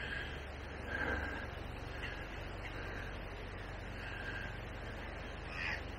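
A bird calling over and over, short calls coming roughly once a second, over a steady low rumble.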